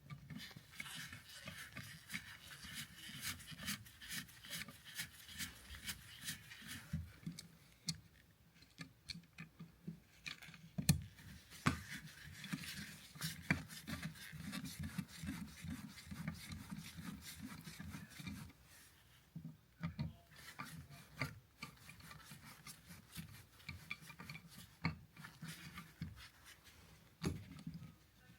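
A three-prong wall outlet being worked into its wall box, with repeated scraping and sharp clicks of metal and plastic as it is pushed in and screwed down with a screwdriver.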